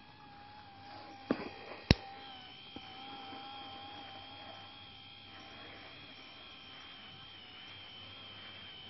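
F20 3D printing pen's small filament-feed motor whining steadily as it pushes out plastic, the pitch wavering slightly. Two sharp clicks come about a second and a half and two seconds in.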